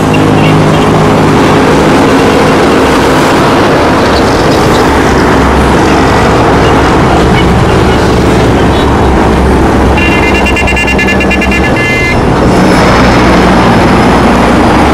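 Steady road traffic noise from a highway, with a vehicle horn sounding for about two seconds a little past the middle.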